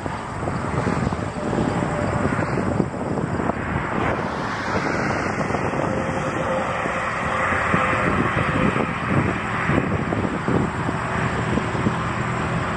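Wind buffeting the microphone in an irregular low rumble, with a rushing hiss that swells and fades in the middle.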